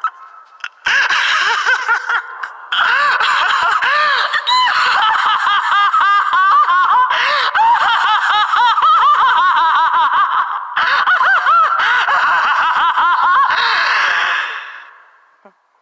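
A man's evil, maniacal laugh, voice-acted for an anime villain: loud and sustained in long peals with brief breaks, starting about a second in and dying away near the end.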